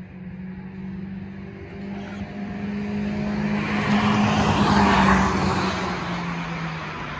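A motor vehicle passing close by, its noise swelling to a peak about five seconds in and then fading, over a steady low engine hum.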